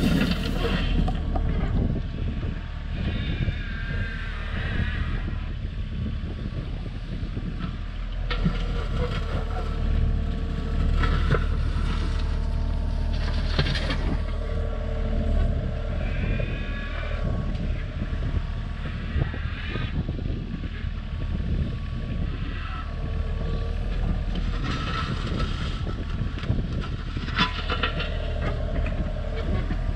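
Terex mini excavator's diesel engine running steadily under load as it digs and moves dirt, with a hydraulic whine that comes and goes every few seconds as the arm and bucket work.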